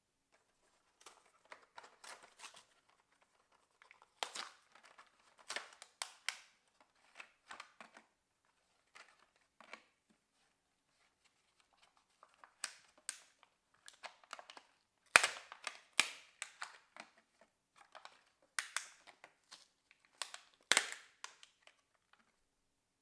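Unboxing handling of an electric toothbrush's packaging: irregular crinkling and rustling of cardboard and plastic, broken by sharp clicks and knocks, a few of them louder about two-thirds of the way through.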